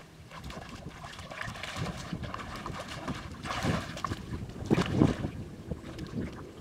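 Shallow muddy water sloshing and splashing as people wade and crawl through a flooded field, in irregular surges that are loudest about halfway through and again near the end.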